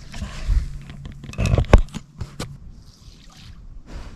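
Handling noise close to the microphone: rustling of camouflage clothing and gear with a few sharp knocks, the loudest about one and a half seconds in, as the camera is moved and set down.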